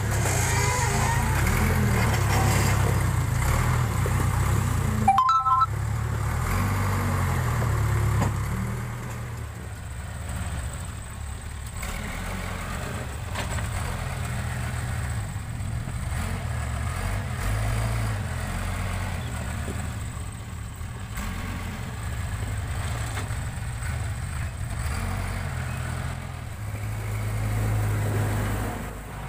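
Backhoe loader's diesel engine running steadily at work, with a brief break about five seconds in and quieter after about eight seconds.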